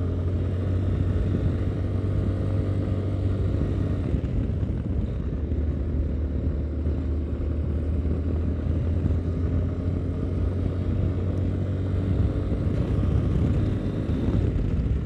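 Yamaha Ténéré 250's single-cylinder engine running steadily as the motorcycle cruises along a dirt road, a constant low drone over a rush of wind and tyre noise.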